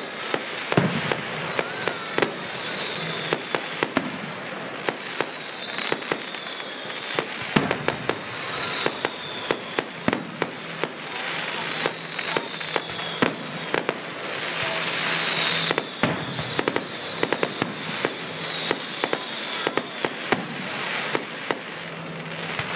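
Fireworks display: a rapid, irregular string of sharp bangs and crackling reports, with repeated whistles falling in pitch.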